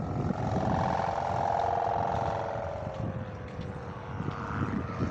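Droning hum of a kite's bow hummer (sendaren) vibrating in the wind, rising and then sinking in pitch and swelling again near the end, over wind buffeting the microphone.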